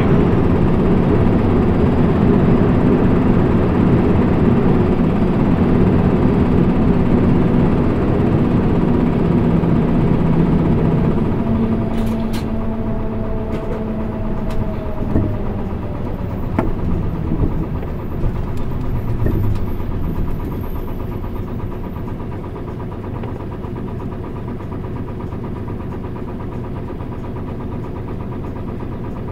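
Cabin sound of a 2008 Mitsubishi Fuso Aerostar PKG-MP35UM city bus with a manual gearbox. Its diesel engine and road noise run loud for about the first ten seconds. Then the bus slows, with a falling tone and a few clicks, and the engine settles to a steady idle as the bus stands.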